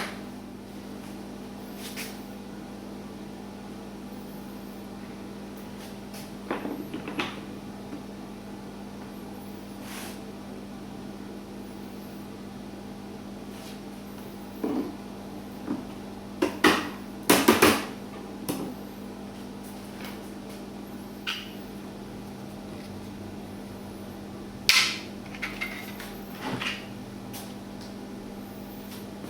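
Scattered knocks and clicks of tools and parts being handled, a cluster of louder ones about two thirds of the way through, over a steady low hum.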